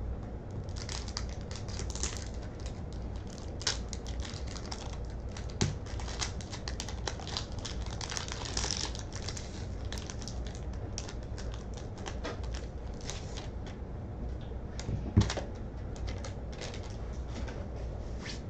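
Trading cards and plastic card holders being handled on a desk: a steady run of small clicks, taps and rustles, with a heavier knock about fifteen seconds in.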